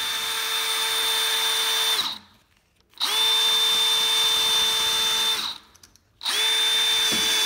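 Cordless drill on its low speed driving self-tapping screws into a metal tube rail, in three steady whirring runs with short pauses between them. Each run comes up to speed with a quick rise in pitch.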